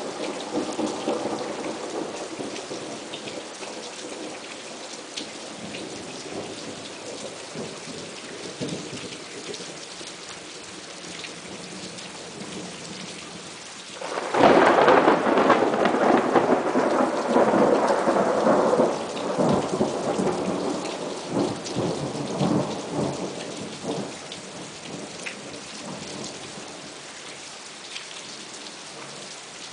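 Thunderstorm: rain falling steadily throughout, with a rumble of thunder fading over the first few seconds. About 14 seconds in, a sudden loud thunderclap breaks and rumbles on for about ten seconds before dying away under the rain.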